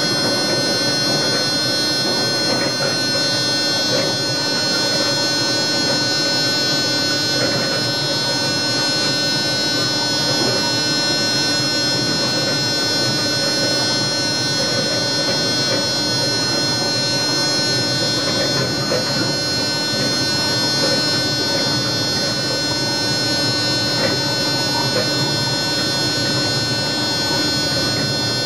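Steady running noise inside a moving train's driver's cab: a constant rumble of wheels on rail with a steady whine of several high-pitched tones from the traction equipment.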